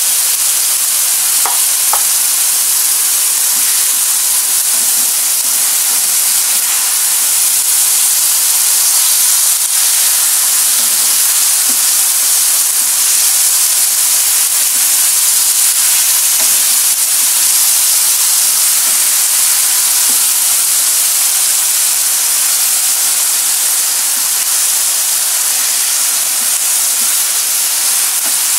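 Chili balado sauce sizzling steadily in a wok around pieces of fried fish, stirred now and then with a wooden spatula, with two light taps about two seconds in. The sauce is cooking down so the spices soak into the fish.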